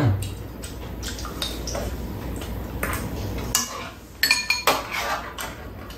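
Metal spoons scraping and clinking against a frying pan and bowls while eating. A cluster of sharper, ringing clinks comes about two thirds of the way through.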